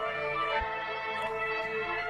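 Instrumental hip-hop beat: sustained chords with one deep bass hit about half a second in.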